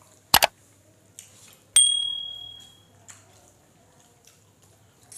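Two quick sharp clacks, then a single clink on stainless-steel tableware that rings out with a clear high tone, fading over about a second.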